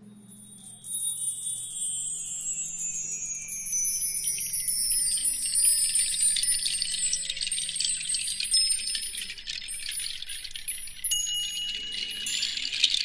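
High tinkling, chime-like sounds begin about a second in, with shimmering tones that slide slowly downward and then thicken into a denser tinkling toward the end.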